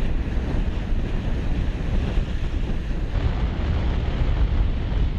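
Heavy wind buffeting the microphone, a steady low rumble over the rush and splash of choppy sea water.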